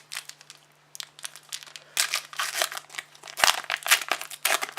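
A trading card pack's wrapper being torn open and crinkled by hand: a run of uneven crackling and crinkling, with a soft thump about three and a half seconds in.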